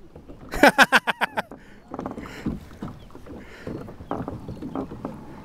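Water slapping against the hull of a Perception Pescador Pilot 12 pedal-drive fishing kayak on choppy water, with scattered small knocks. About half a second in, a person's voice gives a short, loud burst of rapid pulses.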